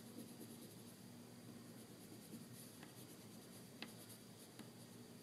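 Black wax crayon scratching on paper, faint, in quick short strokes while fur texture is drawn, with a few sharper ticks in the second half.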